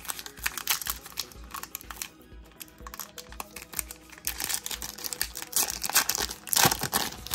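Foil wrapper of a Pokémon booster pack crinkling and crackling as it is gripped and torn open, the crackling loudest near the end. Background music with a steady beat runs underneath.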